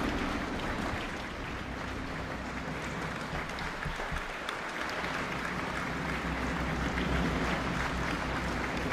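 A large crowd applauding steadily, many hands clapping at once in a big hall.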